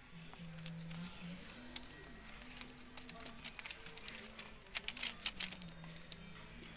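A thin plastic LCD polarizer film sheet crinkling and crackling as it is flexed in the hands, the crackles thickening to a cluster of sharp ones about five seconds in. A soft background melody plays underneath.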